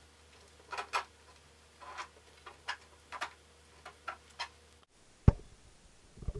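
Irregular light clicks and ticks as a strap clamp is worked and pulled tight around wooden boat pieces. A little before the end come two low thumps about a second apart, the first of them the loudest sound here.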